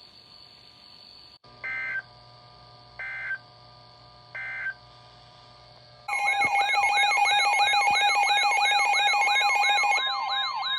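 Three short bursts of Emergency Alert System digital data tones, a buzzy two-tone chirp each, about 1.3 seconds apart: the end-of-message signal closing a flash flood warning. About six seconds in, a loud electronic alert alarm starts, a warbling tone of rapidly repeating rising sweeps, about three a second, over steady high tones.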